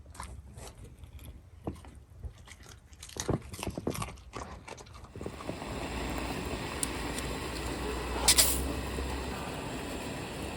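Close eating sounds, crunching and chewing, for about five seconds. Then a steady hiss sets in abruptly, with one sharp crack about three seconds later.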